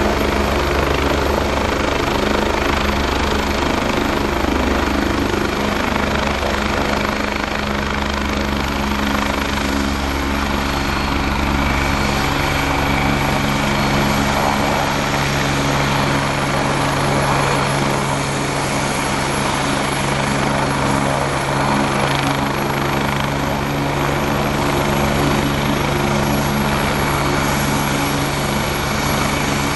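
Police helicopter running close by, taking off: a steady, loud rotor and turbine drone with a constant low hum and no rise or fall.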